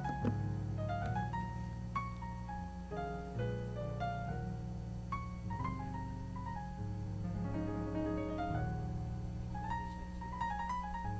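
Instrumental background music led by piano or keyboard: a slow, gentle melody over held bass notes.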